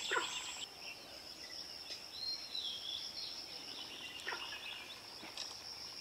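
Woodland ambience: a steady high-pitched insect drone with birds calling over it, one a whistled note that drops in pitch about two seconds in.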